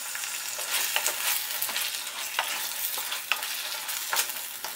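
Onions and ginger-garlic paste sizzling in oil in a stainless steel kadai, a steady hiss, while a wooden spatula stirs in the turmeric, with scattered scrapes and knocks against the pan.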